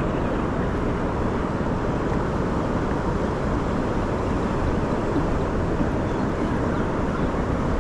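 Wind buffeting the microphone: a steady, low rushing noise.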